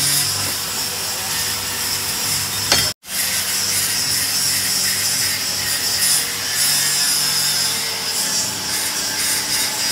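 Continuous rasping, scraping noise of tool work on the boat as the old steering gear is taken out, with a brief total cut-out about three seconds in.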